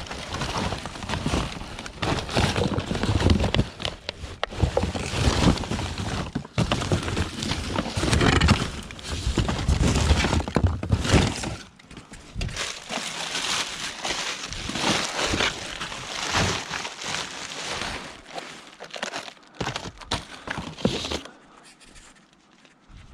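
Rummaging through scrap: irregular clattering, scraping and crinkling of items being handled and moved, heavier for the first half, then lighter clicks and rustles.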